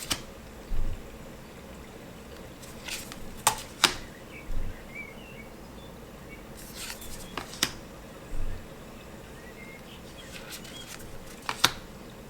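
Tarot cards being flipped through one at a time: a group of crisp card snaps and slides every three to four seconds, four in all, with soft thumps as cards are set down.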